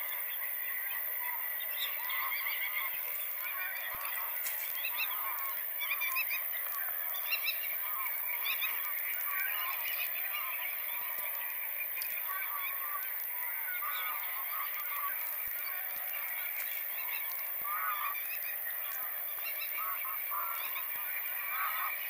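A large flock of geese honking, with many overlapping calls. Busier bursts of calling come about six to seven seconds in and again near the end, over a steady chatter of many birds.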